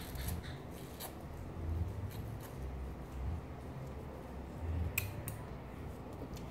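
Metal utensil scraping and cutting ripe mango flesh off the skin, with a few sharp clicks about a second in and twice around five seconds in.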